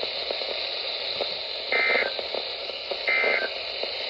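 Emergency Alert System end-of-message data bursts on a weather radio broadcast: two short two-tone digital bursts about a second and a half apart, over steady radio hiss, marking the end of the warning message.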